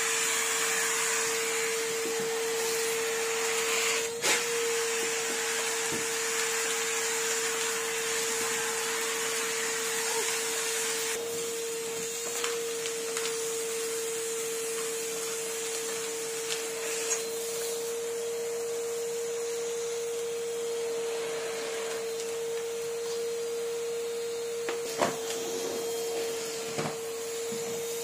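Numatic Henry tub vacuum cleaner running steadily: a constant motor whine over the rush of air through the hose. A couple of brief knocks come through, one about four seconds in and one near the end.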